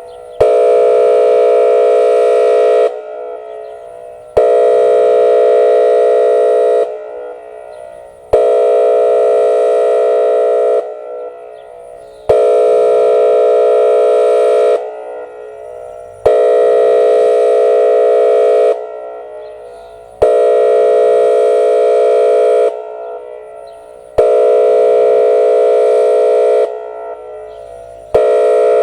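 Whelen WPS-2805 electronic outdoor warning siren sounding its 456 Hz air horn signal for a storm siren test: loud horn blasts about two and a half seconds long, repeated about every four seconds, each cut off sharply and trailing away before the next.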